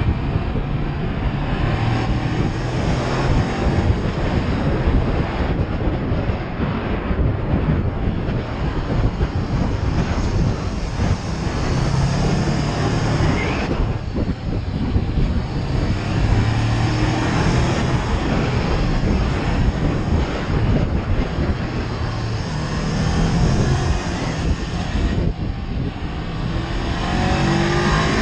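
Honda CB500X's parallel-twin engine running at road speed, its revs rising and falling as the throttle opens and closes, under heavy wind noise on the microphone.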